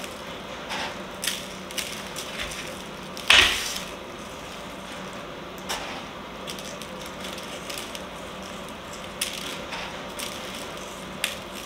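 Salt pinched from a plastic tub and sprinkled by hand over raw chicken halves on a wire rack in a sheet pan, giving sparse light ticks and clicks. One louder knock comes about three and a half seconds in, over a low steady hum.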